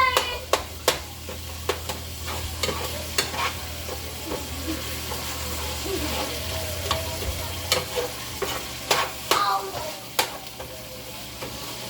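Ground beef frying in a pan, sizzling steadily while a utensil stirs it, with scattered sharp clicks and scrapes against the pan.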